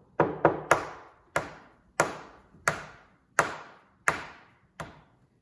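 A chicken egg being tapped against a wooden tabletop to crack its shell: nine sharp taps, three in quick succession, then a slower, even run of six about two-thirds of a second apart, the last one lighter.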